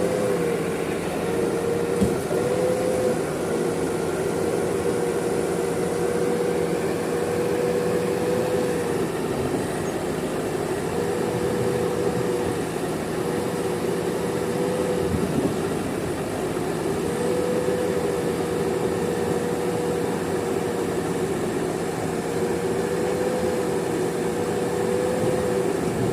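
JCB backhoe loader's diesel engine running steadily while working, with a whine that comes and goes and a couple of short knocks.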